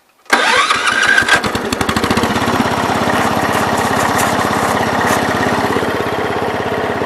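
Gravely 408 walk-behind tractor's engine starting up about a third of a second in, with a brief rising whine as it catches, then running steadily.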